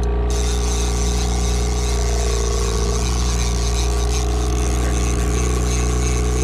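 Boat motor running steadily while trolling, a low even hum with several steady tones in it.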